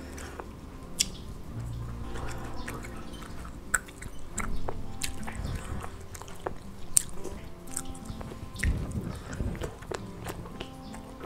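A person chewing a mouthful of grilled cutlassfish and rice, with small wet mouth clicks and smacks, over soft background music.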